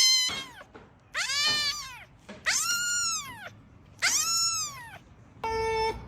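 A cat meowing four times, about one long call a second, each rising then falling in pitch. Near the end comes a shorter, flat, steady tone.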